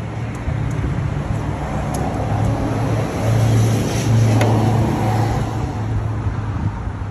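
A car engine running steadily with a low hum that swells a little in the middle, with a few faint clicks over it.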